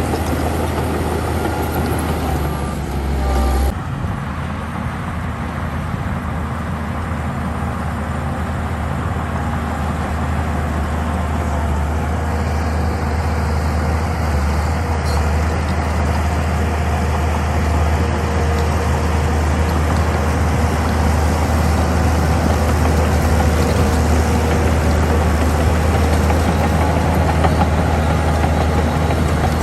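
Heavy diesel earthmoving machinery running steadily with a deep engine drone, getting slightly louder toward the end. There are two short beeps about three seconds in.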